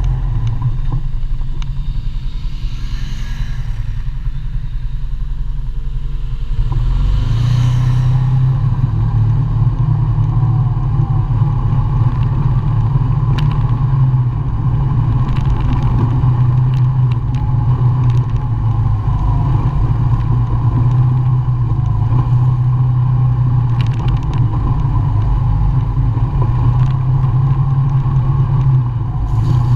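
ATV engine running steadily while riding a rough dirt trail, heard from on the machine; the engine note eases off for the first few seconds and picks back up about six to seven seconds in. A few sharp knocks and rattles come through along the way.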